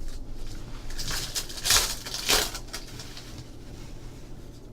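Trading cards and a foil card-pack wrapper being handled: a few short rustles and scrapes, the loudest about one and a half to two and a half seconds in.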